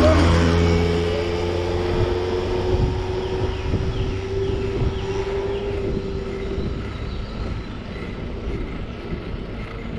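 A motor vehicle passes close by at the start, its engine hum dropping in pitch as it goes by and fading away over several seconds. Underneath is the steady rush of wind and tyre noise from the moving bicycle.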